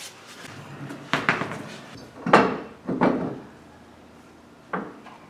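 A series of about five sharp knocks and clatters, one to two a second, the loudest a little past two seconds in.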